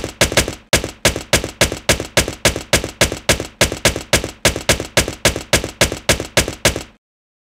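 A rapid, even series of sharp percussive hits, about four to five a second, each ringing briefly with a pitch: a title-animation sound effect that sounds as each letter is stamped on. It stops abruptly about seven seconds in.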